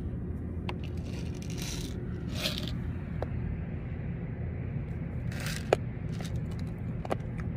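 Small handling noises: a few sharp clicks and short scraping rustles, over a steady low hum.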